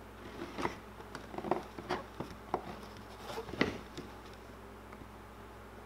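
Hands stretching and pressing a thick vinyl decal onto a plastic RC truck body: faint, irregular rustles and light ticks of fingers on the vinyl and the plastic shell flexing, the loudest about three and a half seconds in.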